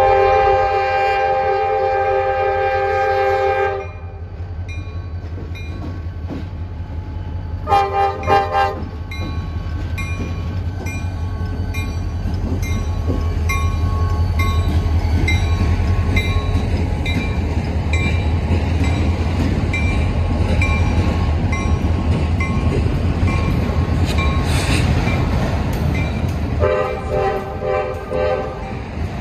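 CSX freight locomotives' air horn sounding a long chord, then three short toots about eight seconds in, and another blast near the end. Between the blasts the diesel locomotives rumble steadily past, followed by the rolling of autorack cars.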